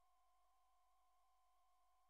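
Near silence, with a faint steady two-tone electronic whine and low hum.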